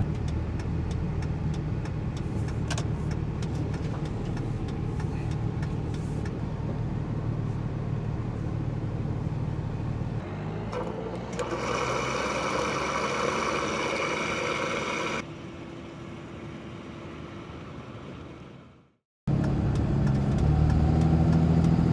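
Pickup truck engine and road noise while driving, a steady low hum. About halfway through, a brighter hiss takes over for several seconds; then the sound drops briefly to silence before the hum resumes.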